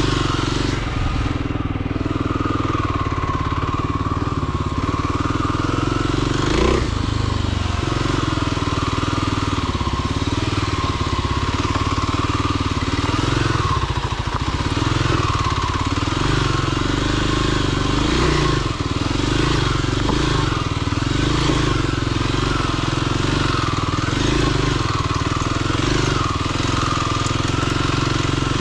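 Motorcycle engine running while ridden off-road, its revs rising and falling with the throttle.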